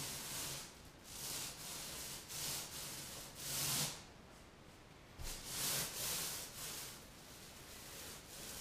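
Paint roller rolling a wet coating onto drywall: about six rasping swishes, one per stroke, with the loudest a little before the middle.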